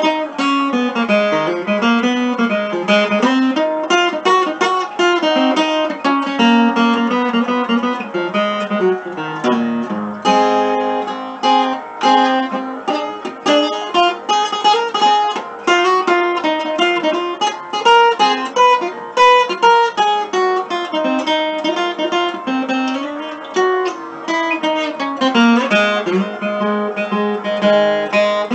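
Steel-string dreadnought acoustic guitar played fingerstyle: a swinging blues tune with a moving bass line under picked melody notes.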